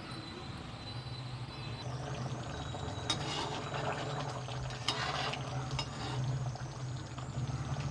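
A cooking spoon stirring and sloshing through thick curry gravy in a pan, with louder wet scraping strokes about three and five seconds in. A steady low hum runs underneath.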